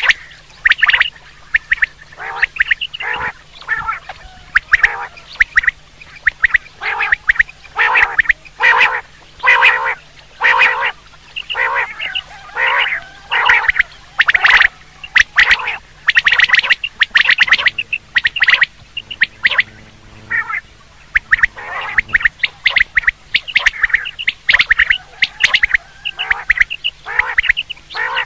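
Quail calling over and over in quick clusters of short, harsh notes: a quail call recording of the kind played to lure quail during the hunting season.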